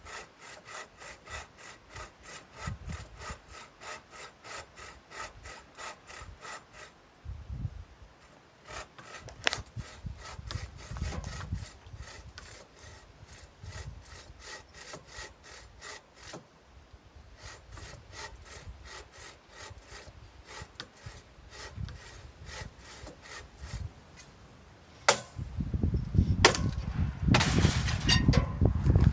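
Hand saw cutting through a dead tree limb, back-and-forth strokes about three a second in several runs with short pauses. Near the end, louder knocks and rustling.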